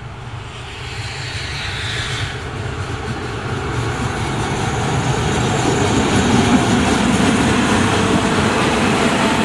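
Diesel locomotive of a passenger train running past close by, its engine and the rumble of wheels on the rails growing steadily louder as it approaches.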